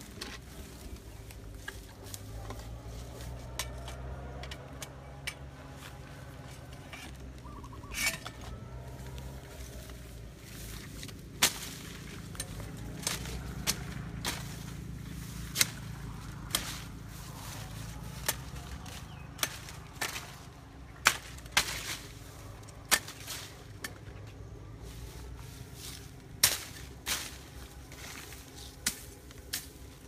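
Irregular sharp cracks and snaps of branches and brush in dense undergrowth, a dozen or so, most of them in the second half, over a low steady rumble.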